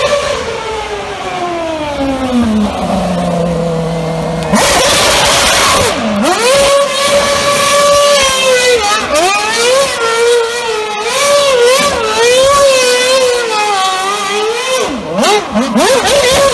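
Red Bull RB7's 2.4-litre Renault V8 Formula One engine comes down through the revs and runs low. About four and a half seconds in it jumps to high revs with the rear tyres spinning, and the revs then waver up and down while the car spins donuts.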